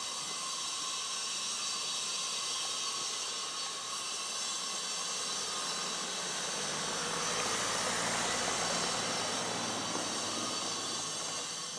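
Steady rushing hiss of street ambience in an empty city, with faint steady whining tones, swelling louder with a low rumble from about seven to nine seconds as a vehicle passes.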